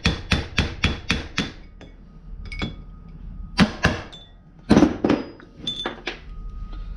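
Hammer tapping a center punch against metal to drive a part out of a lathe carriage. A quick run of about five sharp strikes comes in the first second and a half, then a few slower, spaced taps, some with a brief metallic ring.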